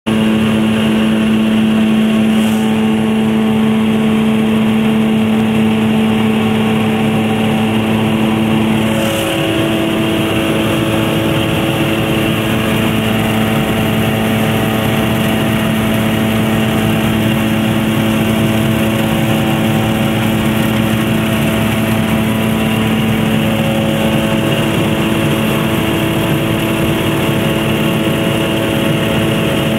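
Otter floatplane's engine and propeller running at takeoff power, heard from inside the cabin; the engine note shifts in pitch about nine seconds in.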